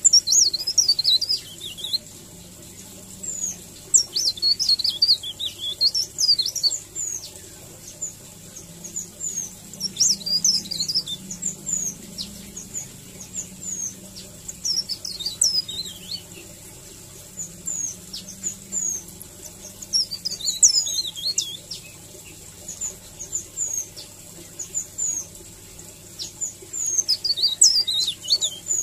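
Mountain leaf warbler (cikrak daun) singing its rolling "ngerol" song: bursts of quick, high, twittering notes every few seconds, with scattered single chirps between.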